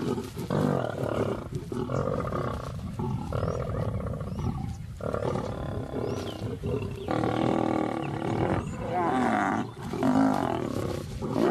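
Lions growling and snarling over a kill in a run of short, harsh calls one after another: the males driving the lionesses off the carcass to reclaim their food.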